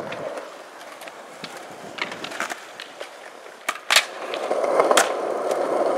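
Skateboard at a concrete skatepark: wheels and board clacking, then a sharp pop and a landing crack as it goes up onto a concrete ledge. It then scrapes along the ledge with a rough rasp for the last two seconds.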